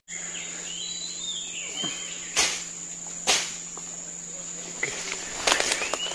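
Steady high-pitched drone of insects in tropical forest, with a few short chirps early on, two sharp snaps of twigs or leaves underfoot, and a run of crackling footsteps through undergrowth near the end.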